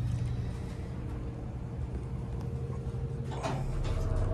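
Otis Gen2 traction elevator's cab door sliding shut, followed by a steady low hum with a faint steady tone inside the cab. Two brief clunks come near the end.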